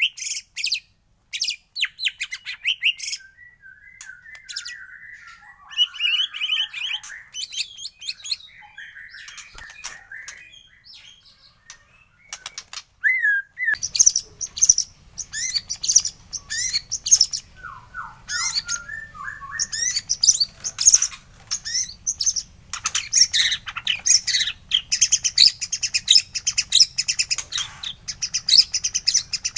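White-rumped shama (murai batu) singing a varied song of whistles, chirps, harsh notes and rapid trills: sparse and quieter for the first dozen seconds, then dense and loud from about halfway on. A faint low hum comes in at about the same point.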